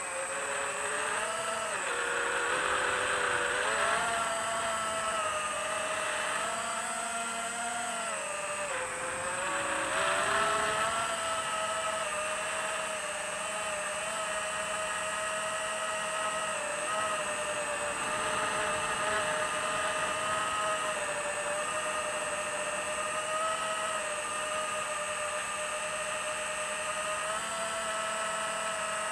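FPV quadcopter's brushless motors whining as it flies. The pitch rises and falls with throttle changes over the first ten seconds or so, then holds fairly steady.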